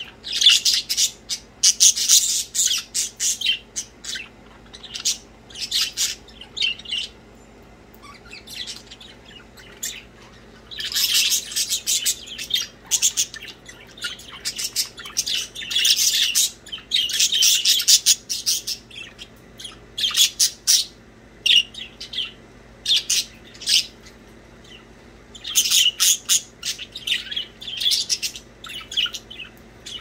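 Several budgerigars chirping and chattering in quick clusters of short, high chirps, broken by a few brief lulls.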